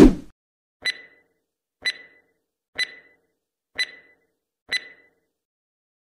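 A low thud, then five short, pitched ticks spaced about one second apart, like a countdown-timer sound effect.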